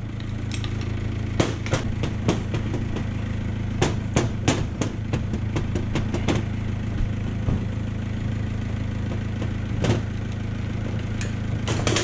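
Sharp metal clicks and knocks as a pry bar and steel rod work on the aluminium housing of a Toyota 1UZ-FE hydraulic fan pump, frequent for the first six seconds or so and then only now and then. A steady low mechanical hum runs underneath.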